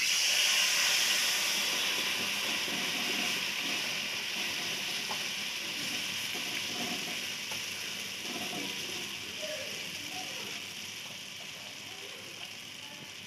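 Water hitting semolina roasted in hot oil in a kadhai: a loud sizzling hiss that starts suddenly and fades steadily as the water takes up the heat.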